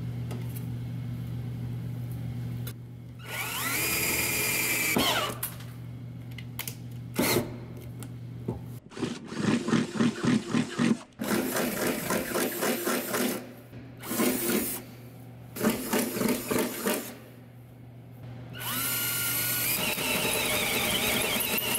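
Cordless drill cutting holes through a van's sheet-metal floor in several separate runs. Each run starts with the motor whine climbing as it spins up, then comes a rapid rattle as the bit chatters through the steel. Near the end a bi-metal hole saw is boring the larger hole.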